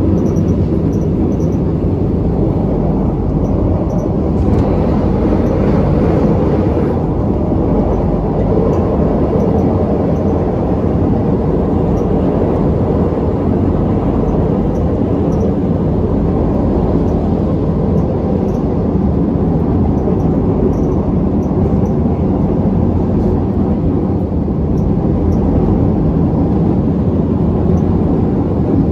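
KTM Class 83 Hyundai Precision electric multiple unit running along the line: a steady rumble of motors and wheels on the rails. A higher hiss rises for a few seconds about four seconds in.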